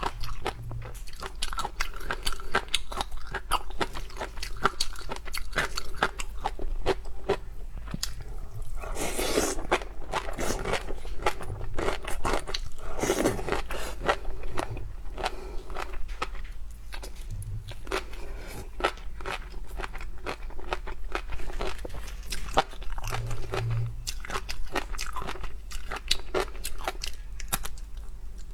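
Close-miked chewing and crunching of seafood, with many small crackling clicks. There are two louder, noisier bursts, about nine and thirteen seconds in.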